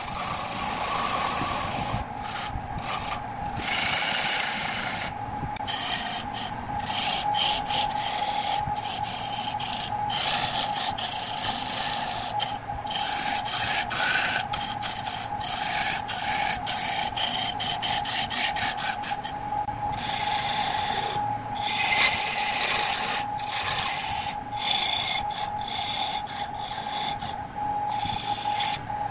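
Turning tool cutting a spinning wood blank on a lathe: a rough scraping, shaving noise that breaks off and resumes many times, over a steady whine from the running lathe.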